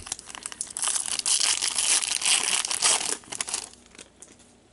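A hockey card pack's wrapper being torn open and crinkled by gloved hands: a loud rustling crackle for about three seconds that stops suddenly, followed by faint handling of the cards.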